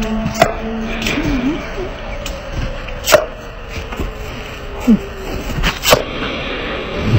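Water hissing from a garden hose spray nozzle, with three sharp snaps as a dog bites at the spray.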